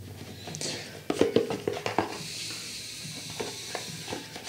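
Light clicks and taps of small items handled on a tabletop, with a soft hiss about two seconds in.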